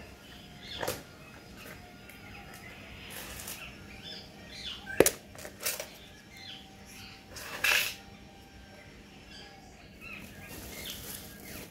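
Plastic plant pots and potting soil being handled: a few sharp knocks and scrapes, the loudest about five seconds in, and a longer rustle of soil near the end.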